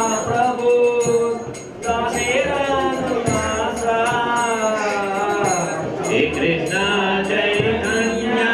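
Devotional kirtan: voices singing a chant over rhythmic clashes of small hand cymbals and a steady held drone, with a short break in the singing just before two seconds in.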